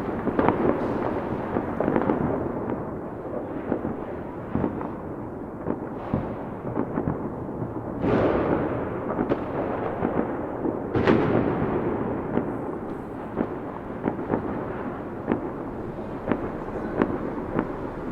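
Fireworks going off continuously: many sharp cracks and pops over a steady rumble, with two bigger booms about eight and eleven seconds in.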